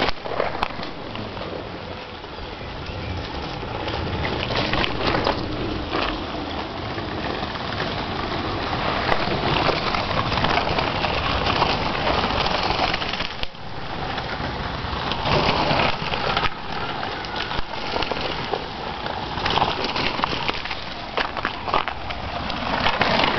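Rumbling, rattling road noise and wind buffeting on the microphone from a bicycle ridden over wet cobblestones, with frequent jolts.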